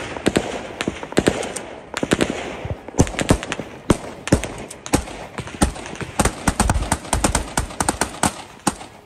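Gunfire: many sharp shots at irregular intervals, several coming in quick runs, with bursts bunched around three seconds in and again near the middle.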